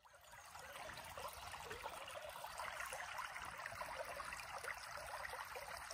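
Shallow creek running and trickling over stones: a faint, steady water sound that fades in at the very start.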